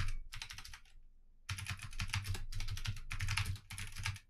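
Rapid typing on a computer keyboard: dense runs of key clicks, with a pause of about a second near the start.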